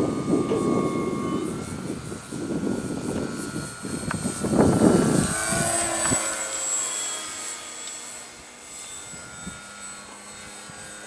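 Electric motor and propeller of a radio-controlled E-flite T-28 Trojan model plane whining in flight, shifting in pitch. Wind rumbles on the microphone for the first half. The whine fades as the plane moves away.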